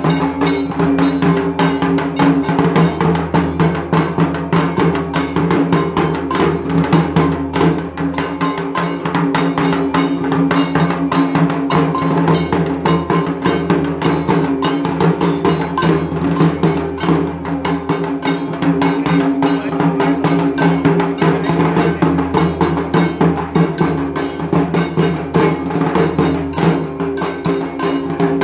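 Dhak drums beaten fast and without pause in a driving rhythm, with a metallic clanging beat ringing along with the drumming.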